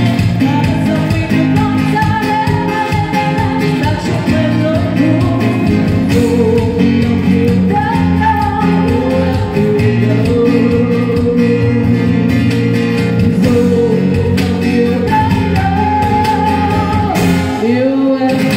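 A woman singing a Vietnamese ballad live, holding long notes, accompanied by strummed acoustic guitar and cajon.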